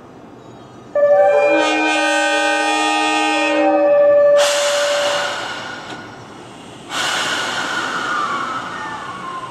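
Train horn sounding a steady chord of several notes for about three and a half seconds, followed by two louder rushes of noise, the second carrying a tone that falls in pitch.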